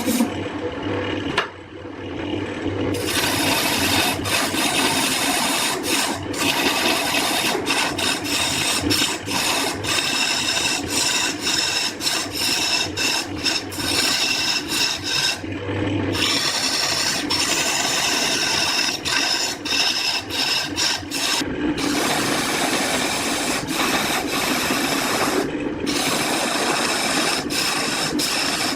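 A tool working wood: a continuous scraping, abrasive noise broken by many brief pauses, with a low hum underneath that changes about three-quarters of the way through.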